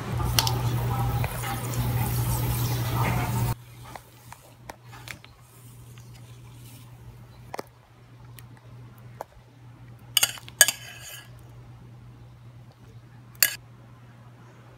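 Milk poured from a plastic cup into a bowl, a steady splashing pour with a low hum under it, cut off abruptly about three and a half seconds in. After that only light clicks and a few short clatters of kitchen things being handled, the loudest about ten and thirteen seconds in.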